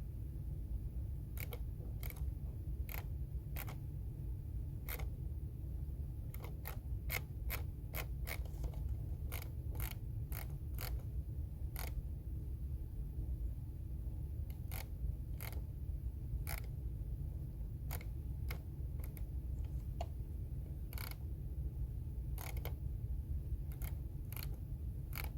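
Computer keyboard typing: irregular keystroke clicks, a quick run of them in the middle and scattered single presses otherwise, over a steady low hum.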